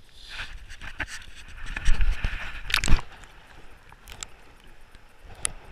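Water splashing and sloshing with knocks from a handheld action camera being dipped under the surface beside a released pike. The loudest splashing comes about two to three seconds in; after that only muffled underwater ticks.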